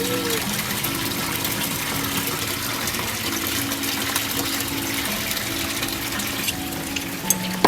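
Steady rushing of water, an even hiss throughout, with soft background music notes over it.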